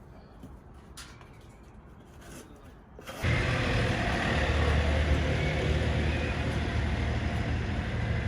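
A few faint clicks, then about three seconds in a machine starts abruptly and runs steadily with a low hum and a hiss.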